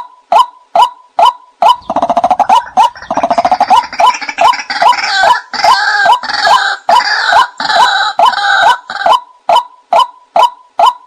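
White-breasted waterhen calls, a short 'kwak' note repeated about two and a half times a second, with a louder, rougher run of overlapping croaking calls from about two seconds in until about nine seconds. It is a decoy recording used to lure waterhens.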